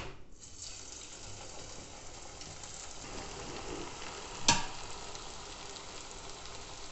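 Maggi noodle-coated potato donuts deep-frying in hot oil in a kadai: a steady, even sizzle of oil bubbling around them. A single sharp click about four and a half seconds in.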